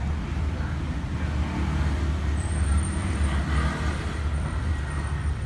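Steady low background rumble, with a faint thin high whine coming in about two and a half seconds in.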